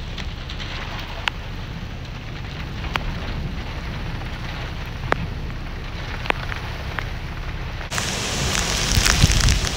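Severe thunderstorm wind and rain: a steady rush of wind with a few scattered sharp ticks. About eight seconds in it changes suddenly to a louder rush of heavy, wind-driven rain.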